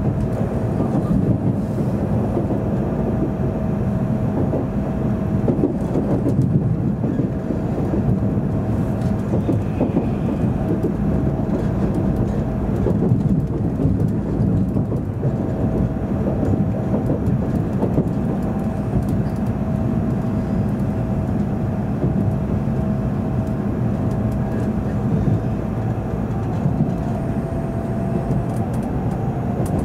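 Cabin of an N700-series Shinkansen train running at low speed: a steady rumble of the wheels and running gear, with a faint steady hum above it.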